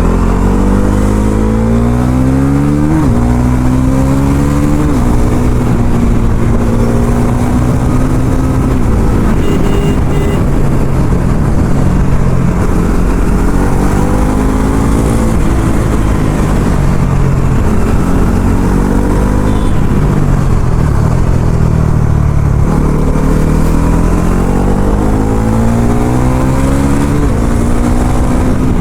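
Bajaj Pulsar NS400Z's single-cylinder engine on its stock exhaust, accelerating hard with revs climbing and quick upshifts about three and five seconds in. It then holds a steadier speed, the revs fall around twenty seconds in, and it pulls up through the gears again near the end.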